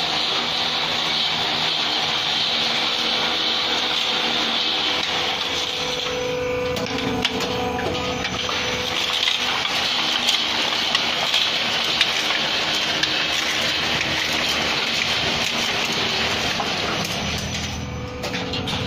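Roll-forming machine for galvalume hollow profiles running steadily. From about six seconds in there are scattered sharp clicks and knocks.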